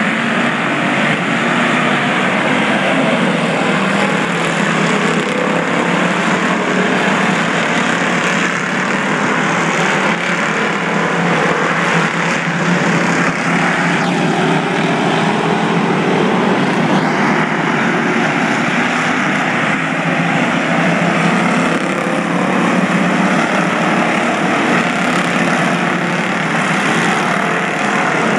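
A field of V8 enduro stock cars racing, their engines running loudly together as one steady mass of noise, with faint rises and falls in pitch as cars pass.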